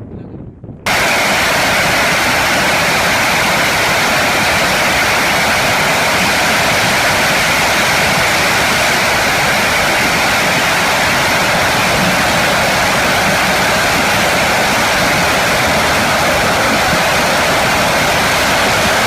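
Jet engine running: a loud, steady rushing noise that cuts in abruptly about a second in and holds unchanged.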